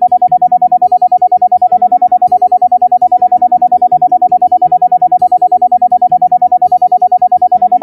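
Sound-therapy track: a single steady tone pulsing on and off rapidly and evenly, roughly ten times a second, over soft background music of low sustained notes.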